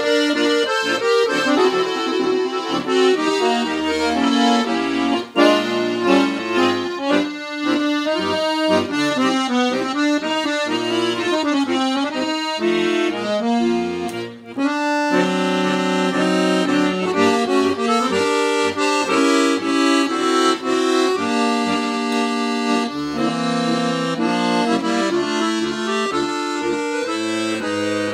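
Ottavianelli four-voice piano accordion (16', 8', 8', 4' reeds) playing a slow melody over low bass notes, with a brief break about halfway through.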